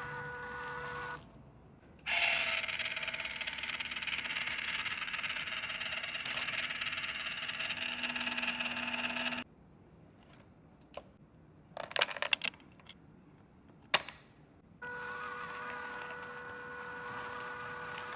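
Small electric motor and gears of a toy RC car whirring steadily for about seven seconds, then stopping, followed by a few light clicks and knocks.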